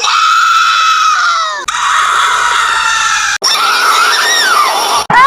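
A cartoon girl character, voiced by a woman, screaming: three long high-pitched screams cut one after another, the first dropping in pitch at its end and the last wavering up and down.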